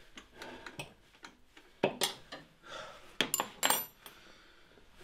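Metal spanners clinking and knocking against engine parts while the auxiliary drive belt is worked off its tensioner and pulleys: a scatter of short clicks, the loudest about two seconds in and a ringing cluster a little after three seconds.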